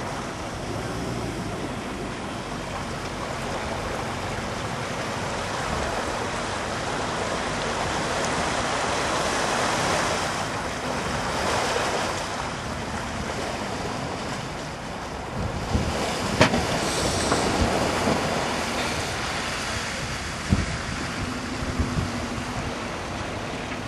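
Mitsubishi L200 pickup's engine working as it drives through deep mud, largely buried under wind noise on the microphone that swells and fades. A few sharp knocks come in the last third.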